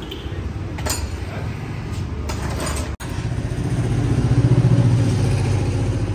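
Engine of a road vehicle going by, swelling to its loudest about four and a half seconds in and then easing off. Before that, a few sharp clicks.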